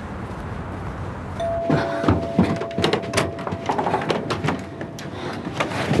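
Steady background noise, then a held doorbell tone for about two seconds, starting about a second and a half in. Over and after it comes a run of sharp knocks and clicks from a door being handled and opened.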